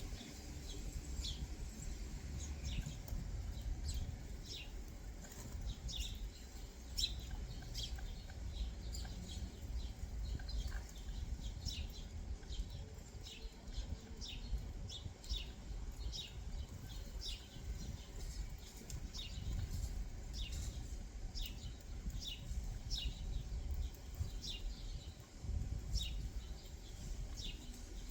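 Small backyard songbirds chirping: many short, sharp, high chips, several a second, over a steady low rumble.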